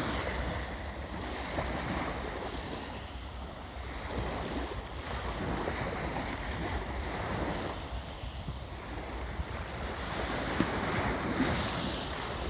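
Sea surf washing onto a beach in slow swells, with wind rumbling on the microphone.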